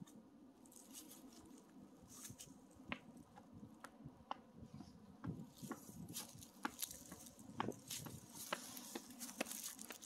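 Footsteps crunching and rustling through dry fallen leaves: irregular crackles, getting denser and louder about halfway through.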